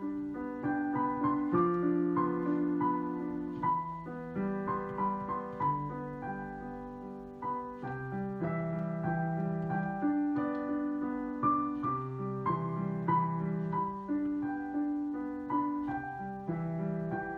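Solo upright piano played with both hands: a flowing piece of held notes that ring on over each other above a moving lower line.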